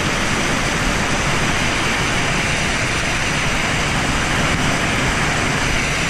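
Waterfall close by: a loud, steady rush of water falling onto rock.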